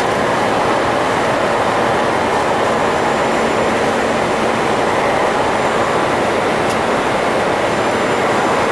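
Steady rush of airflow and engine noise on the flight deck of a Boeing 747-400ERF climbing after take-off. It stays even throughout, with a faint click near the end.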